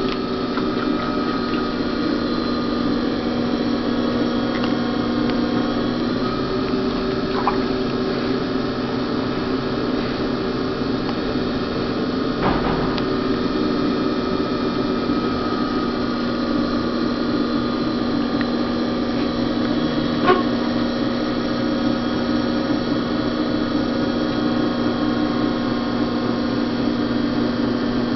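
Electric potter's wheel running fast with a steady motor hum, while wet clay rubs and slips under the hands as it is centered.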